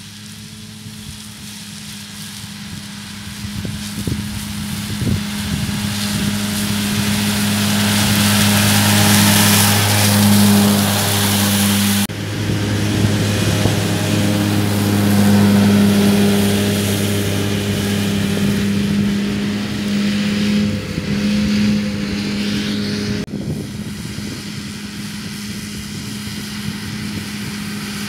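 Case Farmall 115U Pro tractor running under load with its Kuhn FC 313 disc mower spinning through grass: a steady deep hum under a rushing wash of noise that swells and fades. The sound changes abruptly twice, about twelve and twenty-three seconds in.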